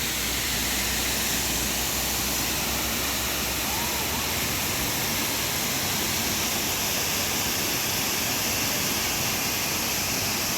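Waterfall's water falling and splashing, a steady, unbroken rush.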